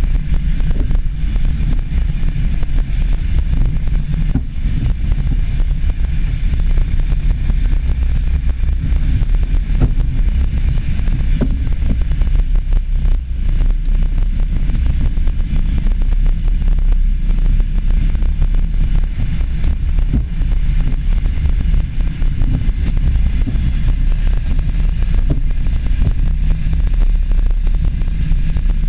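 Passenger train running along the track, heard from on board: a steady low rumble of wheels on rails with many small clicks and rattles scattered through it.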